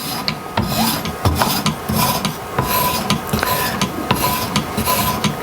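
Abrasive sharpening stone drawn in repeated rasping strokes along a steel scissor blade's edge on a guided sharpener, with a faint ring from the blade. This is a light polish of the bevel at about 120 grit, which leaves the blade toothy.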